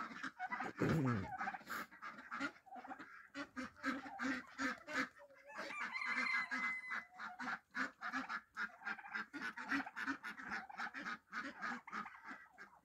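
Mixed backyard poultry flock of ducks, turkeys and chickens calling: a steady run of short, repeated calls, with one falling call about a second in.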